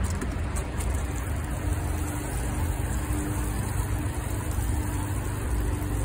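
Water poured from a container onto the soil of a potted moringa plant, over a steady low engine rumble.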